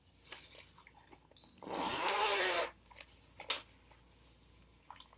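A recorder case's zipper being pulled open in one pull lasting about a second, starting a little over a second and a half in, with a few light handling clicks around it.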